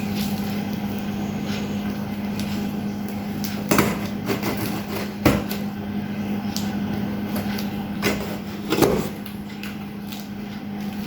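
A handful of separate knocks and scrapes from a cardboard helmet box being handled and opened, the sharpest about five seconds in, over a steady low hum.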